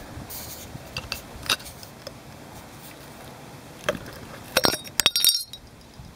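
Cover of a used fuel filter being pried open by hand: scattered scrapes and small clicks, then a quick run of sharp clinks and rattles about four and a half seconds in as the cover comes off.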